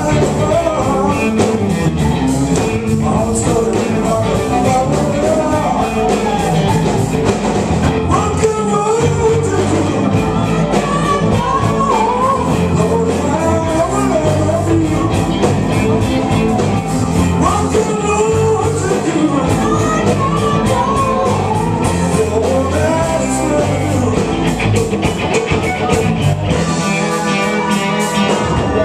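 Live blues-rock band playing electric guitar, keyboards and drums, with voices singing along over it. Near the end the low end thins out under sustained chords.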